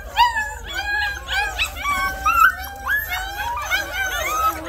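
A litter of Bernese mountain dog puppies whining and yipping all at once, many short high calls overlapping without a break.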